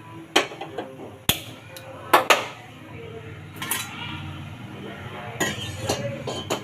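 Kitchen pots and utensils clinking and knocking together: a string of sharp, irregular clatters, two close together about two seconds in.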